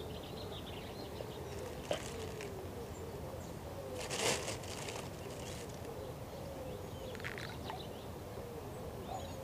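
Steady rush of fast-flowing shallow river water below a weir, with a few short noises, the loudest about four seconds in.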